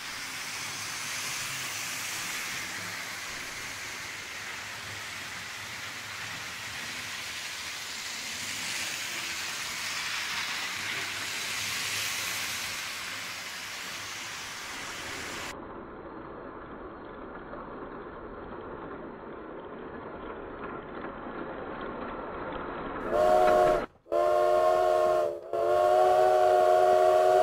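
A multi-tone steam locomotive whistle sounds three long blasts near the end, the last still sounding at the close. Before it there is a steady hissing rumble.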